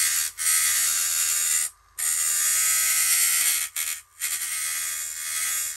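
Proxxon mini rotary tool running at slow speed, its small sanding disc grinding into the cut corners of a clear vacuum-formed plastic body shell to smooth away scissor tears. The sound is a steady hiss over a faint motor hum, and it cuts out briefly twice.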